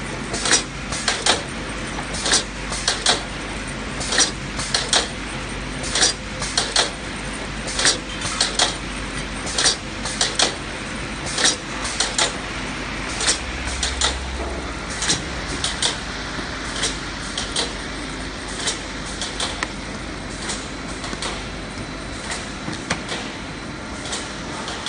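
Shrink-wrap packaging machinery running with a steady hum and frequent sharp clicks and snaps, about one or two a second, growing sparser in the second half.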